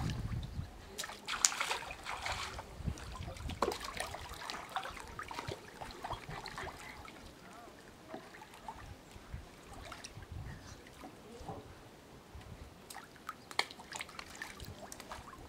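Pool water splashing and sloshing as a child slaps the surface with his hands and paddles in armbands: irregular splashes, busiest in the first couple of seconds, then lighter lapping and trickling.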